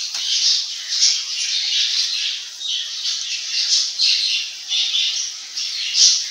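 Rice-flour and coconut-milk murukku deep-frying in hot oil: a steady, crackling sizzle that swells and eases about once a second. The sizzle means the murukku is still cooking; it is done once the sizzling dies down.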